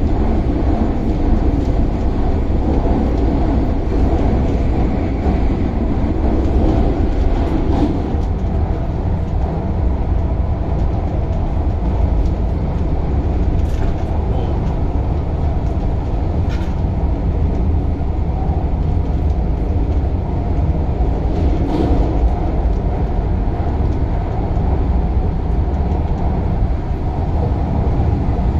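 Running noise of a CAF-built MTR Tung Chung line train heard from inside the car: a steady low rumble of wheels on rail, broken by a few brief sharp clicks in the middle.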